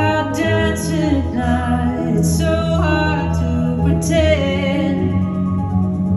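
Song with a singer's held, gliding voice over sustained instrumental backing.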